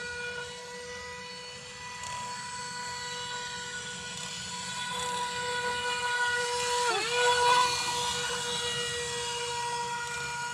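Motor of a small homemade RC jet boat's 16 mm jet thruster whining at a steady high pitch as the boat runs across the water. About seven seconds in, the pitch dips sharply and comes back, and the whine is loudest around then.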